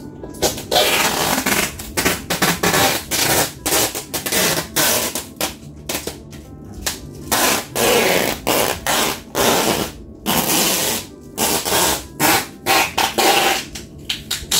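Plastic stretch wrap on an overpacked cardboard box crinkling and rustling in irregular bursts as it is pressed down on by hand to flatten the bulging top.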